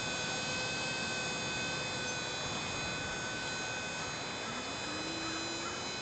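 Remote-control helicopter in flight: its motor and rotor whining at a steady, unchanging pitch over a rushing noise.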